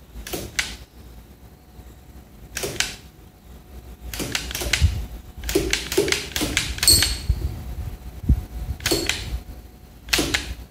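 Homemade wooden Ai-Oh semi-automatic rubber band gun (OGGcraft rack design) firing shot after shot: sharp wooden clicks and snaps as each trigger pull releases a rubber band. They come at uneven spacing, with a quick run of shots in the middle.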